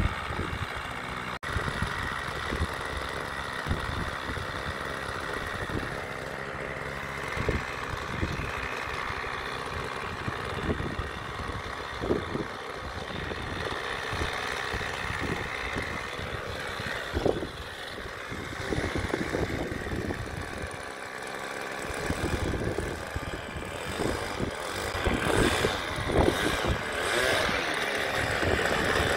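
An RC model airplane's small engine running steadily at idle, then getting louder over the last several seconds as the plane taxis off. Wind buffets the microphone throughout.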